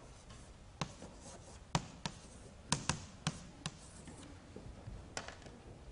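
Chalk writing on a blackboard: sharp taps of the chalk striking the board with faint scratching between, about eight taps, most of them in the middle.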